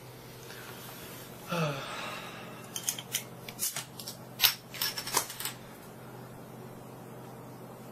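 A metal bottle opener and a glass beer bottle clinking as the cap is pried off: a quick run of sharp metallic clicks and clinks, the loudest about halfway through. Just before, a short voice sound falls in pitch.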